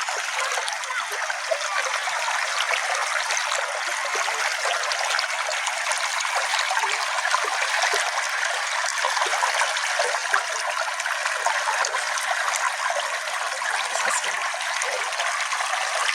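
Small brook flowing steadily, water trickling and babbling over stones, with an even rushing hiss and no low rumble.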